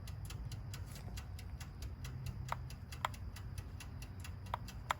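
Toaster oven's timer ticking steadily and fast, about five ticks a second, over a low hum, with a few louder sharp clicks in the second half.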